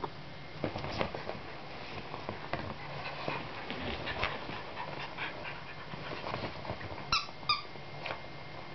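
Jack Russell Terrier scuffling and digging on bedding, with rustling of blankets and scratches from its paws and claws. About seven seconds in come two short high squeaks, close together.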